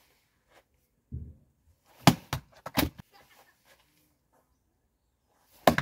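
Axe blows on a log standing on a tree-stump chopping block, failing to split it: a dull thud about a second in, a quick cluster of sharp knocks around two seconds in, and one more sharp strike near the end.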